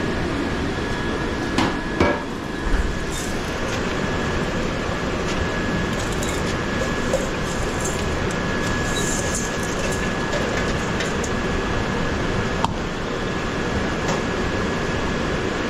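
Steady rushing background noise of a working restaurant kitchen while noodles boil, with a few sharp knocks of metal utensils or pots about two seconds in and again near the end.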